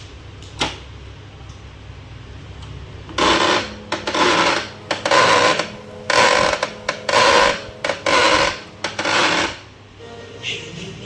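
Canon LBP2900 laser printer's motor gears grinding in about six loud rasping bursts, each under a second, at roughly one a second. This is the printer's gear-grinding noise fault.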